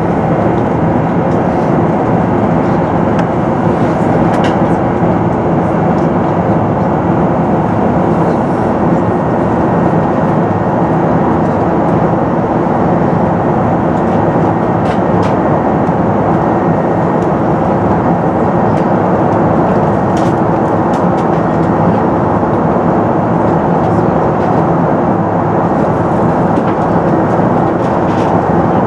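Steady in-flight cabin noise of an Airbus A380 heard from a window seat over the wing: the rush of airflow and the hum of its Rolls-Royce Trent 900 engines, with a few faint clicks.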